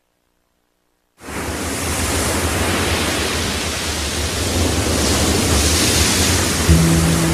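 Steady rushing of sea surf and wind, a sound-effect intro, starting suddenly about a second in. Low held notes of the song's music come in near the end.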